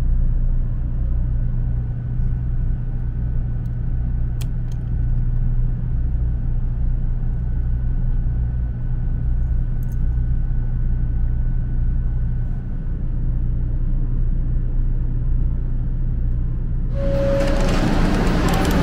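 Steady low rumble and hum inside a 500 series Shinkansen bullet train carriage. About two seconds before the end the sound changes abruptly to a louder, brighter noise with a brief tone.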